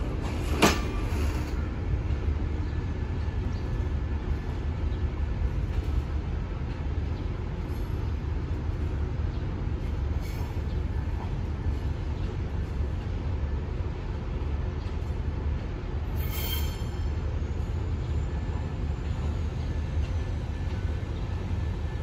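Passenger train pulling out: wheels click sharply over the rail joints as the last car passes just after the start, then a steady low rumble as the train draws away. A brief sharp sound comes about sixteen seconds in.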